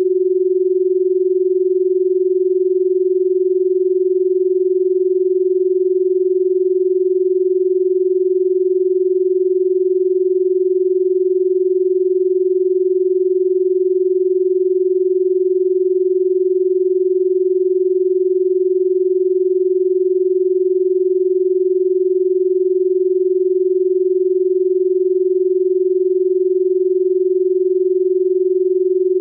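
A steady, unbroken electronic sine tone at a low-middle pitch, held without change. It is the tone track of a subliminal audio, made for listening on earphones.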